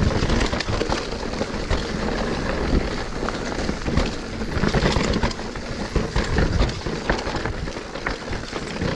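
Mountain bike riding fast down rough, loose singletrack: tyres rumbling over dirt, roots and rocks, the frame and drivetrain rattling, with frequent sharp knocks and clatter from rock strikes.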